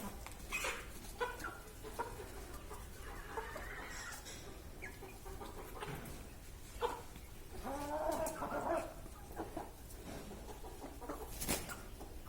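Broiler chickens clucking and calling, with a few short sharp sounds between the calls. The flock has been sneezing and now, according to the owner, sneezes only a little: it is recovering from a respiratory ailment.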